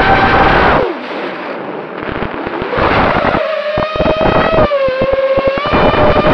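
Brushless motors and propellers of a Shendrones Krieger mini race quad whining, heard from its onboard camera. The whine drops away about a second in as the throttle is cut, then rises again, its pitch shifting with the throttle, with a run of sharp crackles in the middle.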